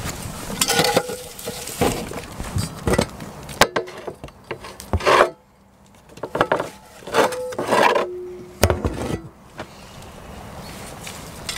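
A goat eating from a metal feed pan in an upturned plastic tub: irregular clanks, knocks and scrapes as its muzzle and horns hit the pan, some clanks briefly ringing. The sounds drop out for about a second near the middle.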